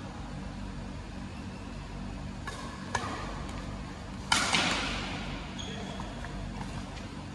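Badminton rackets striking a shuttlecock during a doubles rally: a light click about three seconds in, then one loud, sharp hit about a second later that echoes through the hall.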